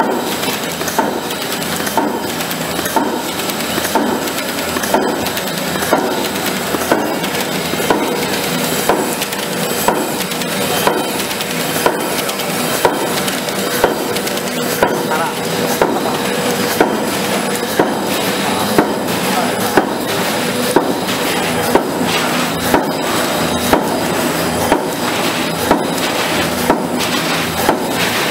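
Label printing machine running, a steady mechanical clatter with a sharp knock about once a second from its working stroke.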